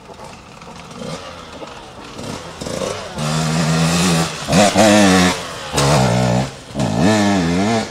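Enduro dirt bike engine coming close, growing louder over the first few seconds. From about three seconds in it is revved hard in short bursts on and off the throttle, its pitch climbing and dropping with each burst.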